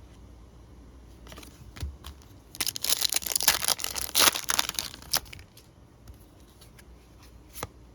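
Foil trading-card pack wrapper being torn open and crinkled, a dense crackle lasting about two and a half seconds from a few seconds in. Light sharp ticks of cards being handled come before and after.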